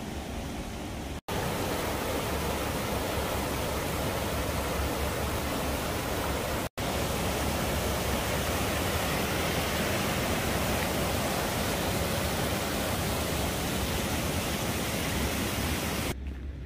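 Steady, loud rushing noise spread evenly from low to high pitch, broken by two sudden brief dropouts about a second in and near the middle.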